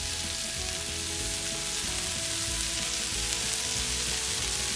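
Bratwursts sizzling in their fat on a hot Blackstone flat-top griddle: a steady, crackling frying hiss.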